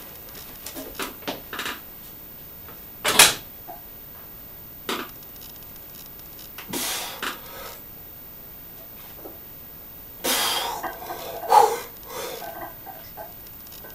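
Bench-press set: scattered knocks and clanks of a loaded barbell, sharpest about three seconds in and again near the end, with a few short bursts of forceful breath.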